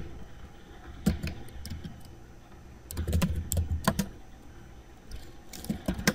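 Computer keyboard keys clicking as a command is typed, in short runs of keystrokes with pauses between them.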